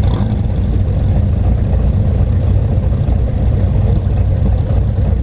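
Car driving at a steady pace: a loud, steady engine and road rumble.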